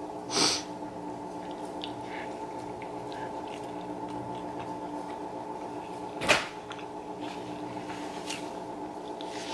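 Close-miked chewing of a piece of breakfast-burrito tortilla, with two short sharp sounds, about half a second and about six seconds in, over a steady hum.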